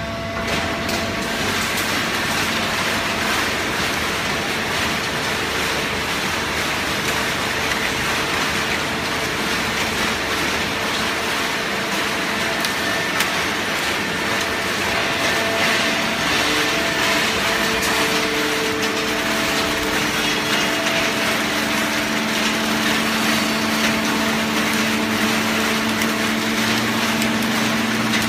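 Fully automatic horizontal hydraulic baling press running: a steady, loud machine din from its power pack and feed conveyor. A lower hum grows stronger about two-thirds of the way through.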